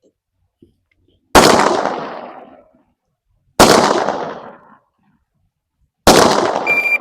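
Three single gunshots, slowly spaced, each trailing off in a long echo. Near the end a short high electronic beep, the start signal of a shot timer.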